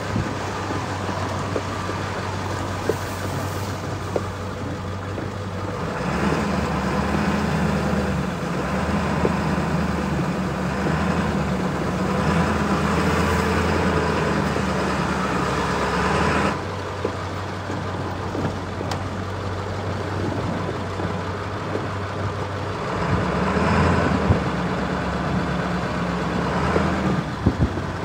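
Diesel pickup truck driving slowly on a rough gravel and snow track: a steady low engine drone that gets louder about six seconds in, drops back suddenly past the middle, and rises again near the end, with scattered small ticks.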